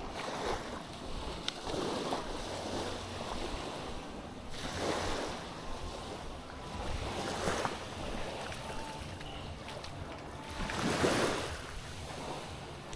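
Small waves breaking and washing up a beach, the surf surging several times, loudest near the end.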